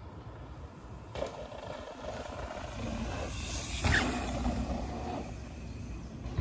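Mountain bike riding past close by on a gravel dirt trail. The tyre noise swells to a peak about four seconds in, with a single knock as the bike goes by, then fades as it rides away.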